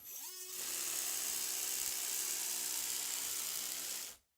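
Brushless electric motor of a 3D-printed, belt-driven RC car spinning up with a rising whine, then running at steady speed with a high hiss from the drive. It stops abruptly about four seconds in.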